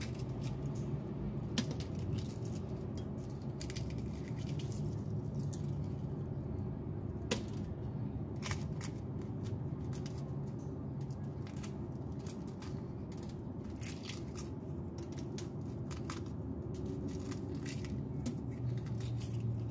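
A century egg being peeled by hand: scattered small clicks and crackles as pieces of shell crack and come away, with one sharper crack about seven seconds in, over a steady low hum.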